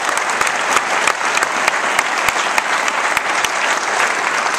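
Large audience clapping steadily, many hands at once.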